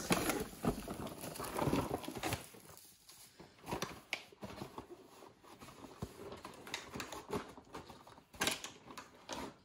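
Shredded crinkle-paper filler rustling as a cardboard box of biscuits is pulled out of a gift box, followed by scattered light taps and scrapes as the box is handled and turned over. The rustling is busiest in the first couple of seconds.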